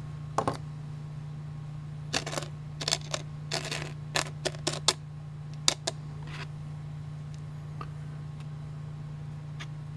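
Light taps and clicks, about a dozen and mostly in the first six seconds, as an opened ceramic cartridge fuse is tapped against a paper index card to shake out its sand filler. A steady low hum runs underneath.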